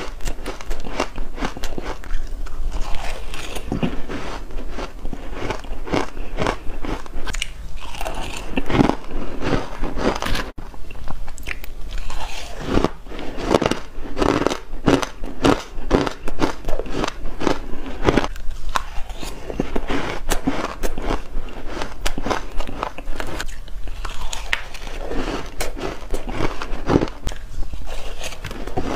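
Close-miked biting and chewing of frozen ice chunks dusted with matcha powder: a dense, irregular run of crisp crunches and crackles, broken by a momentary dropout about ten seconds in.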